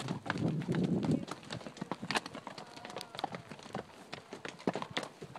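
Horses' hooves clopping and clattering on loose rock in an irregular string of sharp strikes, with a low rumble in the first second.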